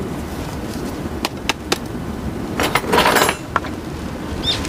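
Handling noise from gloved hands moving a plastic plant pot: a few light clicks, then a brief scraping rustle about three seconds in, over a steady low rumble. A bird starts chirping right at the end.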